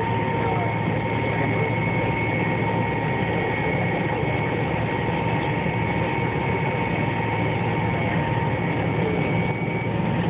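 Cabin noise inside an MD-88 airliner taxiing with its rear-mounted Pratt & Whitney JT8D turbofans at idle: a steady low rumble with two thin, steady whines above it.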